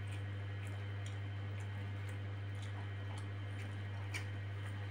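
Scattered faint clicks and small wet sounds of eating with the hands, from mixing rice and noodles and chewing, with one sharper click about four seconds in. A steady low electrical hum sits under everything.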